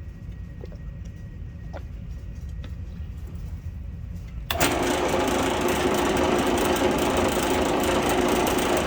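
Drill press switched on about halfway through, its motor then running steadily. Before that there is only a low hum and a few light clicks.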